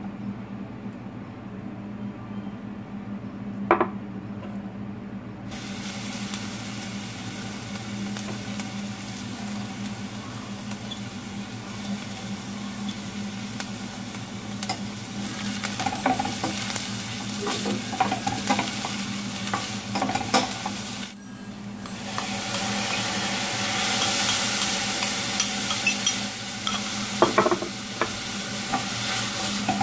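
Chopped onion, then hydrated soy protein, sizzling in oil in a stainless steel pan. A wooden spatula stirs and knocks against the pan. The sizzle starts about five seconds in, after a sharp knock, and grows louder after a brief break about two-thirds of the way through, once the soy protein is in. A steady low hum sits underneath.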